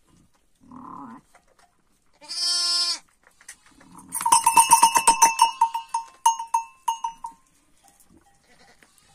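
A single short bleat about two and a half seconds in, then from about four seconds in the bell on the ewe's neck clanks rapidly for about three seconds as she moves, its ringing dying away.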